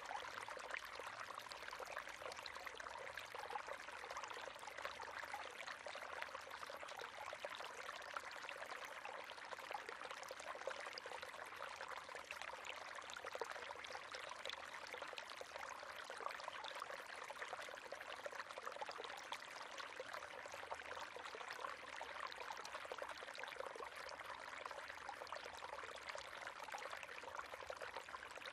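River water flowing steadily over stones, a continuous babbling and splashing with no pauses.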